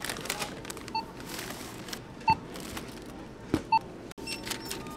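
Self-checkout barcode scanner giving three short beeps as items are scanned, over the clatter and rustle of items being handled and bagged.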